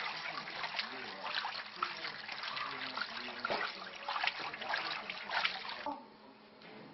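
Water sloshing and trickling as a hand slowly stirs flour in cold water in a large basin, washing the dough to separate the starch for niangpi. The sound cuts off abruptly about six seconds in.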